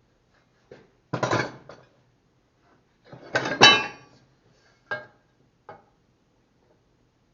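Steel parts clanking and clinking as they are handled and set down: a loud clatter about a second in, a louder one with a brief metallic ring past the middle, then two light clinks.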